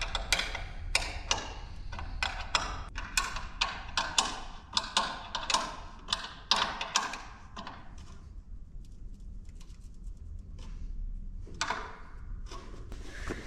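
A quick, irregular series of sharp knocks and taps, about two or three a second, from hard objects being knocked and handled, dying down to a few fainter knocks after about eight seconds.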